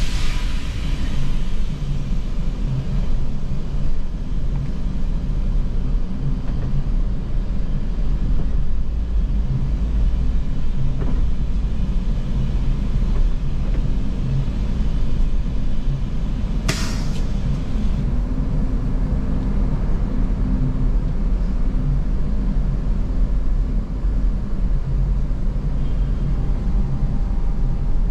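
A diesel coach engine running at low speed with a steady low rumble, heard from inside the bus cabin, with one short hiss about seventeen seconds in.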